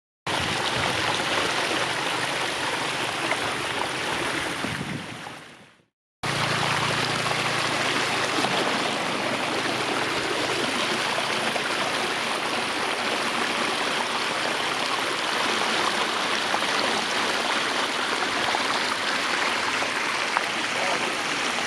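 Steady rushing of flowing water. It fades out about five seconds in, stops briefly, then comes back and runs on evenly.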